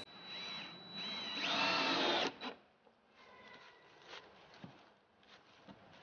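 Cordless drill driving into the wooden boards of a raised-bed frame, run in two short bursts that each rise in pitch, then a longer, louder run that cuts off a little over two seconds in. Faint clicks and knocks of handling follow.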